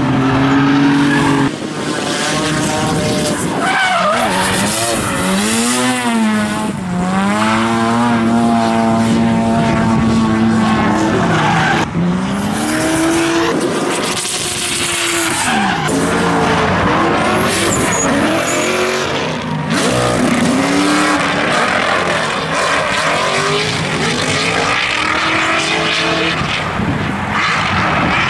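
Drift cars' engines revving hard, their pitch swooping up and down as the throttle is worked through the slides, over tyres squealing and skidding sideways. The sound jumps abruptly a few times between runs.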